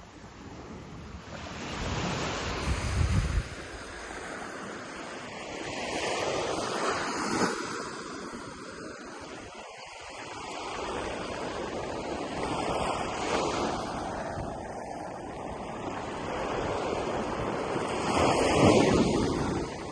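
Ocean waves breaking on a beach, the surf swelling and easing every few seconds and loudest near the end. Wind buffets the microphone with a low rumble about two to three seconds in.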